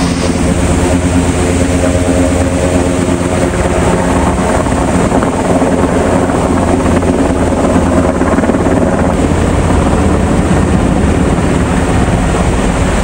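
Helicopter flying overhead: a loud, steady drone of rotor and engine.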